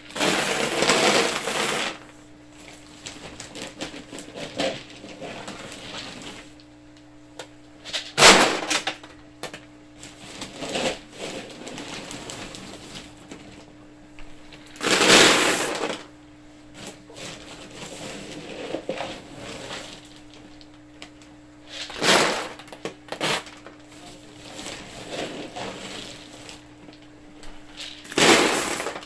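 Wood pellet bedding being poured from a bag into a hard plastic kiddie pool, pellets rattling onto the plastic and the pellet bed in about five pours of a second or two each, with quieter noise between them.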